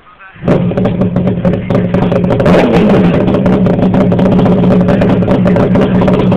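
Kick-started motorcycle engine firing up abruptly about half a second in, then running loud and steady, with a brief rev up and back down around the middle.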